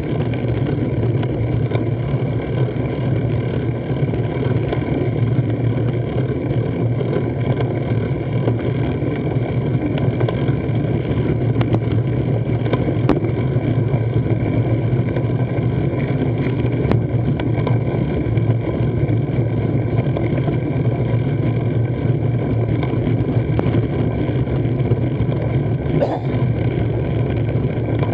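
Steady low rumble with a few constant hum tones over it, as picked up by an action camera clamped to a bicycle's handlebars on a slow climb.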